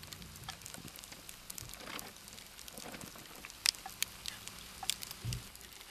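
Wood campfire crackling: scattered sharp pops and snaps over a faint hiss, with one louder pop a little past halfway.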